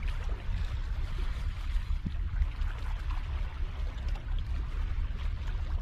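Wind buffeting the microphone with a steady low rumble, over water lapping and trickling against the rocks.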